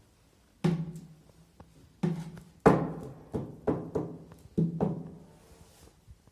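An irregular series of about eight sharp knocks on a hard, resonant object, each leaving a brief low ringing tone, the loudest near the middle.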